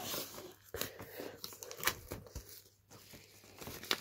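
Clear plastic shrink wrap being torn and peeled off a vinyl record box set, crinkling, with several sharp rips.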